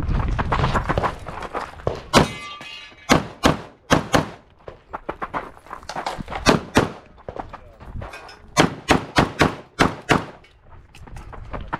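Semi-automatic pistol fired rapidly through a USPSA stage after the start beep: sharp shots in quick pairs and strings, with short gaps between groups as the shooter moves between firing positions.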